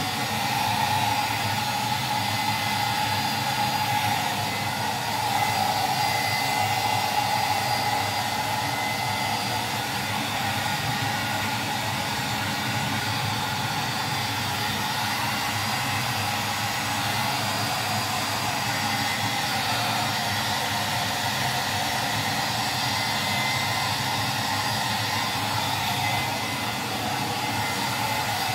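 Handheld hair dryer running steadily, blowing air through a dog's thick fur.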